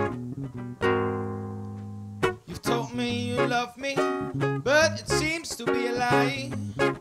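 Live band without drums, acoustic guitar and bass guitar, playing a song while a man sings into a microphone. About a second in, a chord rings and fades, and the singing comes in over the guitar about two seconds in.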